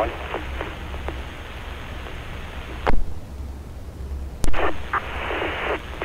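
Fire-department radio heard through a Baofeng UV-5R scanner between transmissions: steady hiss and low hum, two sharp squelch clicks about three and four and a half seconds in, and a burst of static near the end.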